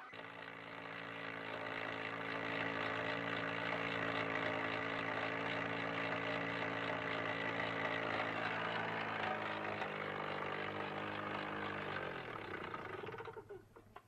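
A motor running steadily with a rough, gritty noise over it, then slowing to a stop near the end, its pitch falling as it winds down.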